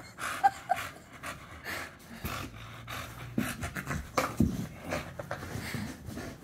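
Dog panting hard in short, irregular breaths while it squirms in someone's arms, with scuffling and handling noises and two brief high squeaks about half a second in.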